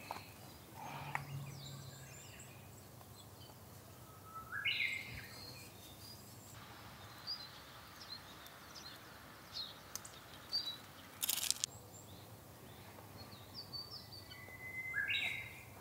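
Wild birds giving scattered short calls and chirps over a faint outdoor hiss, with one brief sharp click about eleven seconds in.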